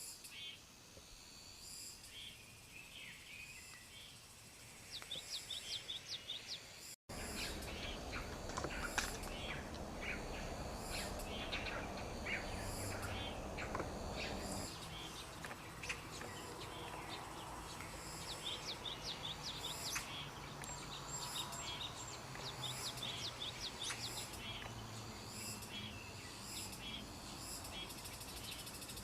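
Birds chirping in quick runs of short high notes over steady outdoor background noise. The sound drops out for an instant about seven seconds in and comes back with louder background noise.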